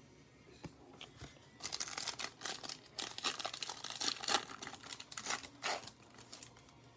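Foil trading card pack wrapper crinkling and tearing as it is opened, preceded by a few small clicks.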